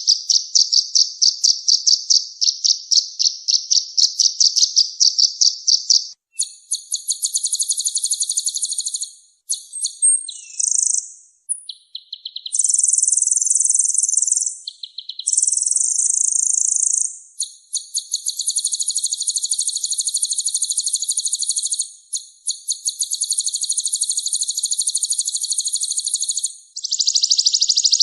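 Harsh, buzzy rattling bird calls from a songbird-training (masteran) recording: a pulsed rattle for the first six seconds, then a run of higher, denser buzzing trills, each a few seconds long, broken by short pauses.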